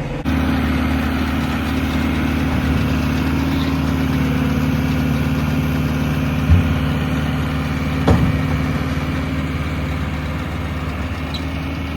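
Case IH JX90 tractor's diesel engine running steadily with a round baler in tow, with two short knocks about a second and a half apart past the middle.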